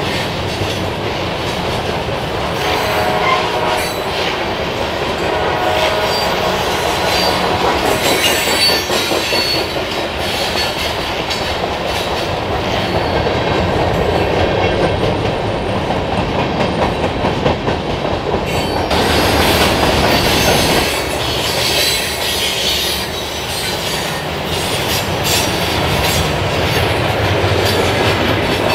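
Freight cars of a Norfolk Southern train, covered hoppers and boxcars, rolling past close by: a steady, loud rumble of steel wheels on rail with clickety-clack over the rail joints. Thin wheel squeals sound in the first few seconds.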